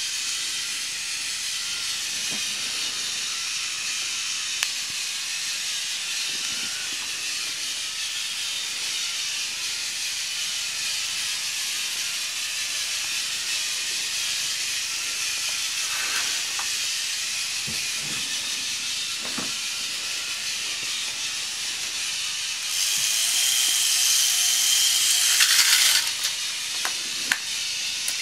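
K'nex roller coaster model running: its motorized chain lift keeps up a steady whirring hiss, with a few faint clicks. About 23 seconds in the noise grows louder for some three seconds with a steady high whine, then drops back.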